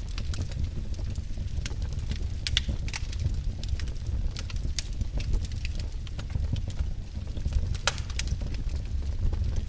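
Wood fire burning in a fireplace, with irregular sharp crackles and pops of the burning logs over a steady low rumble.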